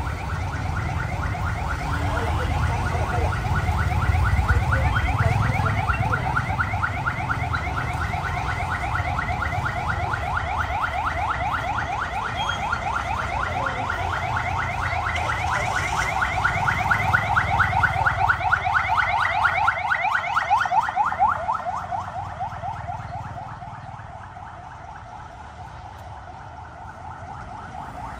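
An electronic alarm, of the car-alarm kind, sounding a fast repeating warble over a low rumble. It fades away about 22 seconds in.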